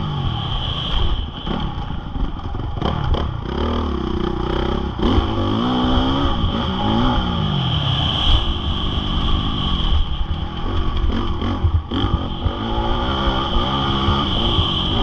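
Honda CRF450R single-cylinder four-stroke motocross engine under hard riding, revving up and dropping back again and again as the throttle opens and closes, with a steady high whine underneath.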